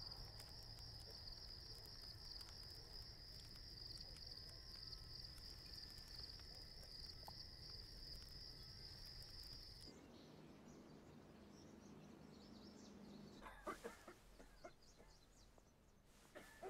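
Faint, steady pulsing trill of crickets in night ambience, stopping abruptly about ten seconds in. After that comes faint room tone with a low hum and a few soft clicks.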